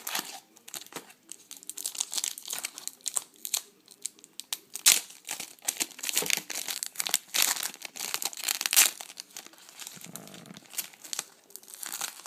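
Plastic wrapper of a trading card pack crinkling and tearing as it is ripped open by hand, a dense run of crackles that eases to a softer rustle near the end.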